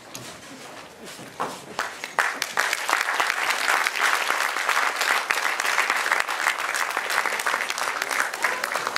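Audience applauding: a few scattered claps at first, then dense clapping about two seconds in that keeps going.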